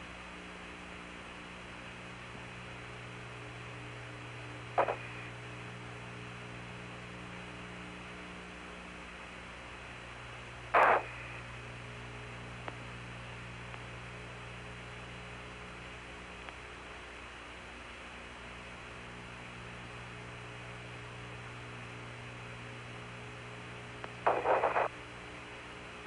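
Steady hiss and hum of the Apollo 15 air-to-ground radio link with no voice on it, broken three times by short crackles of radio noise, the last a little longer.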